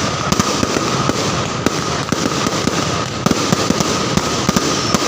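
Fireworks going off in quick succession: a dense, continuous crackle of many sharp pops and bangs, several a second, with a faint steady high tone underneath.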